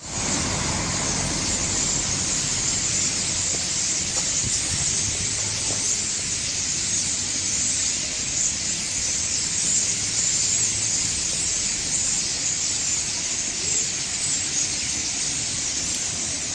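A huge flock of common starlings chattering together in a tree: a dense, steady wall of high squeaks and whistles that never lets up.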